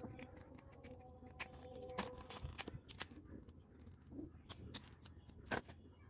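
Faint, scattered clicks and taps of a plastic plug-in mosquito repellent vaporiser's casing being pried open with a screwdriver and pulled apart.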